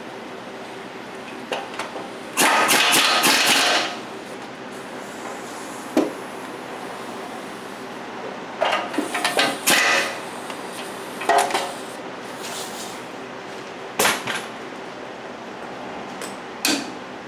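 Pneumatic wrench on an air hose running a tie rod end's castle nut down onto its stud: one long burst of about a second and a half, then several shorter bursts and brief blips as the nut is snugged. A single sharp click about six seconds in.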